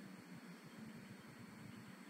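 Near silence: a faint steady hiss.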